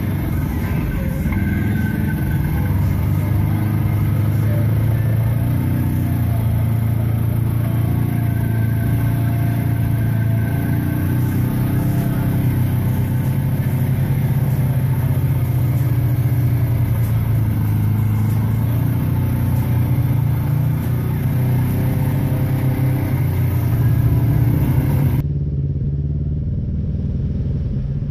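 Side-by-side UTV engine running steadily at low speed while driving through flooded, muddy trail; the sound turns duller near the end.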